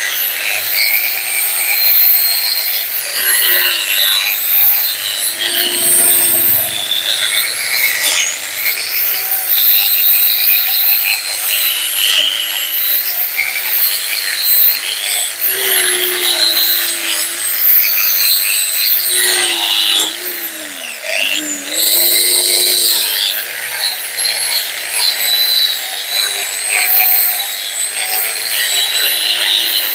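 Handheld angle grinder with a sanding disc running against a steel car coil spring, stripping its old paint: a steady motor whine under a harsh grinding hiss, the pitch sagging a few times as the disc is pressed harder, most clearly around 8 and 20 seconds in.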